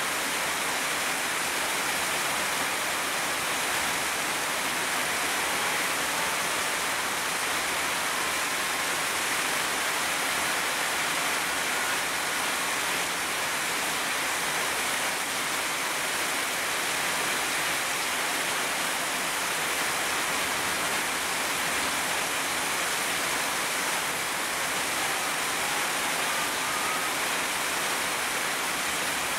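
Heavy rain pouring steadily onto leafy garden plants: an even, unbroken hiss.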